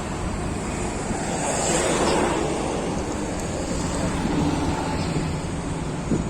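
Boeing 737-800's CFM56 jet engines at takeoff: a steady rushing noise over a low rumble.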